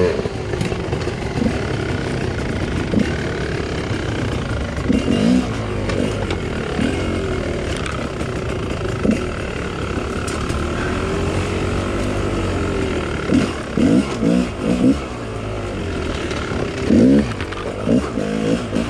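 Two-stroke dirt bike engine of a 2018 GasGas 250XC being ridden on trail, its revs rising and falling again and again with quick throttle blips, several close together near the end.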